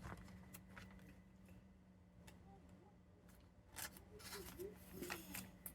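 Faint rustling of plastic-sleeved trading cards being handled and slid into binder pages, with a few light clicks scattered through.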